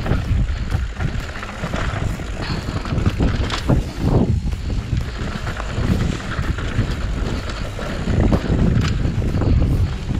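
A mountain bike descending a rough downhill trail: the tyres rumble over dirt and rocks and the bike rattles, all under steady wind noise on the microphone.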